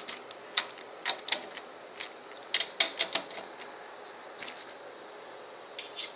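Hands working on the parts of a computer case: irregular sharp clicks and taps, many in the first three seconds, a lull, then a few more near the end.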